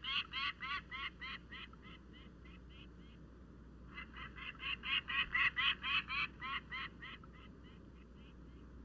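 Peregrine falcon calling: two runs of repeated sharp call notes, about four a second. The second run starts about four seconds in, grows louder, then fades away.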